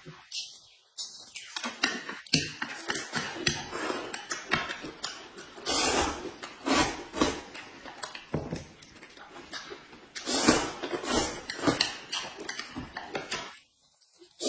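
Close-up eating sounds: noodles slurped and chewed in quick, irregular mouthfuls, with chopsticks clicking against plates. The sound drops out briefly about a second in and again just before the end.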